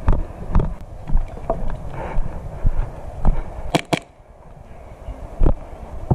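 Hurried footsteps on leaf litter and gravel, with heavy irregular thumps and the rattle of gear jolting on the moving player, and two sharp cracks close together about four seconds in.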